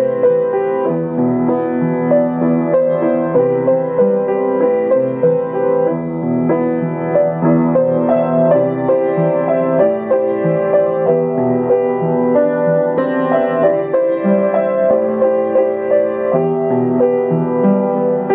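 Piano music: a steady stream of overlapping held notes and chords.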